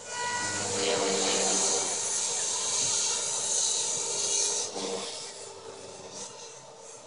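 Compass Warp 360 electric RC helicopter in flight: a loud rotor whoosh over a steady motor whine that starts suddenly, holds for about four and a half seconds, then falls off to a fainter hum.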